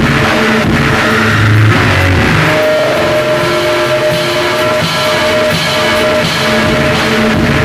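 Loud rock music with guitar and drums; a held note enters about two and a half seconds in.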